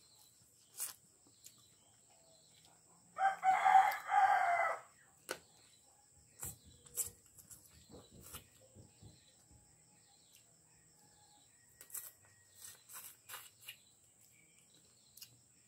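A rooster crows once, about three seconds in, a pitched call lasting about a second and a half. Scattered faint clicks and crunches follow as chicken bones are chewed.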